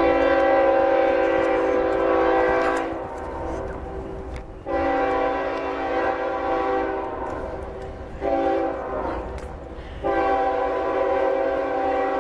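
Nathan K5HL five-chime locomotive air horn sounding a chord in four blasts: long, long, short, long. This is the standard grade-crossing signal.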